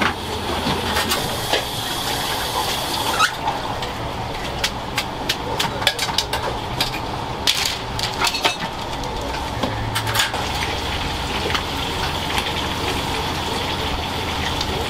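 Busy restaurant kitchen noise: a steady hiss that stops about three seconds in, then repeated clatter and knocks of metal trays and dishes.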